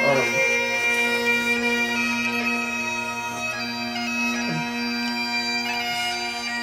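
Bagpipe music: a steady drone under a chanter melody.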